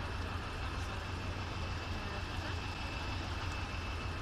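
Truck engine idling: a steady low rumble, with a faint steady high whine above it.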